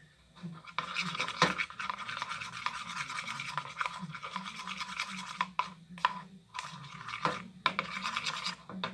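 Fast, scratchy scraping of slime ingredients being stirred in a small plastic pot, broken by two short pauses.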